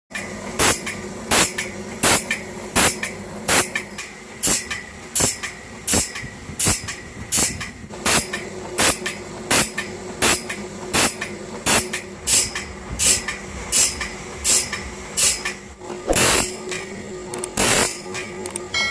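A metal file rasping across the teeth of a large saw blade in quick, even strokes, about one and a half a second, with two longer, louder strokes near the end. A faint steady hum runs underneath.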